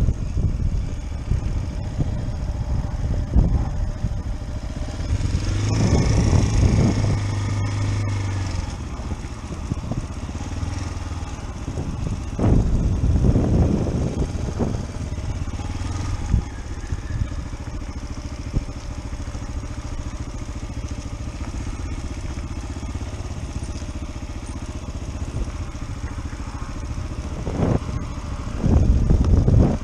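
Dual-sport motorcycle engine running at low speed while the bike rolls along a rough path. The engine note swells a few times, around six seconds in, around thirteen seconds in and again near the end.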